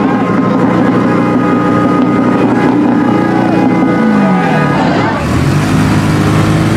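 Pickup truck engines running as the trucks cruise slowly past, with one engine's pitch falling about four seconds in; crowd chatter underneath.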